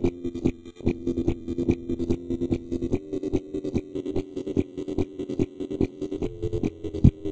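Layered loops playing back from a loop station: a steady low droning tone layer under a fast, busy beat of short clicks and knocks, several a second, with a heavier low hit near the end.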